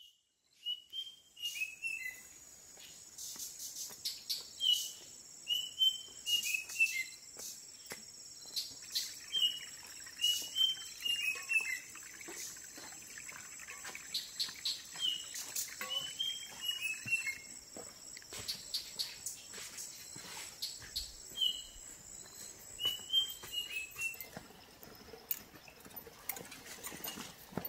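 Forest birdsong: a bird repeats a short phrase of several quick notes falling in pitch, about every five seconds, over a steady high whine and scattered high chirps.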